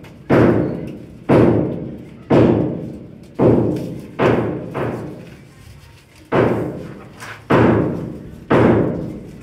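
Heavy thuds at a steady pace of about one a second, each dying away with an echo. One beat drops out about halfway through.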